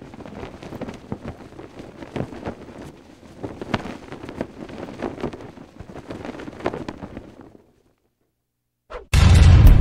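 Wind blowing with cloth flapping, a waving-flag sound effect, which stops about 7.5 s in. After a short silence, loud music with a heavy boom starts near the end.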